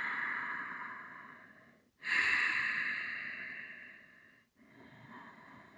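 A man breathing slowly and deeply through his nose, close to the microphone: three long airy breaths, the middle one starting about two seconds in being the strongest, the last one faint.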